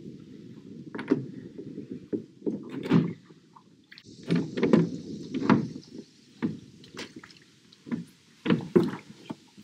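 Irregular knocks and clunks from a small rowing boat, oars and oarlocks working against the boat as the rowing gets going, over a low steady rumble.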